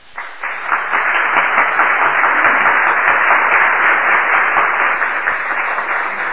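An audience applauding, building up within the first second and then holding steady.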